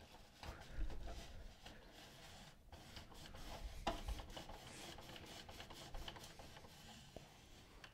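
Print carriage of an Epson WorkForce inkjet printer being pushed by hand back and forth over a paper towel: faint sliding and rubbing with a few light clicks. The towel is wiping excess water off a freshly cleaned print head.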